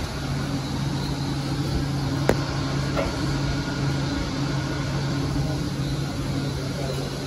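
Zurich Airport Skymetro, a cable-hauled air-cushion people mover, running through its tunnel, heard from inside the car: a steady low hum over running noise, with a sharp click about two seconds in.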